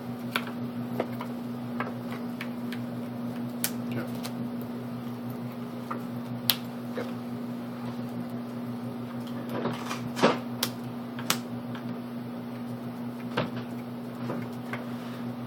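Scattered light taps and clicks of trading cards being laid and slid on a table, the loudest cluster about ten seconds in, over a steady low electrical hum.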